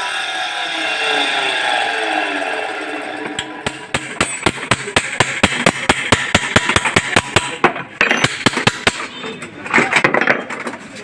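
A power tool's motor winding down, its pitch falling, then a fast run of hammer taps on metal, about five a second, while a water pump motor is taken apart.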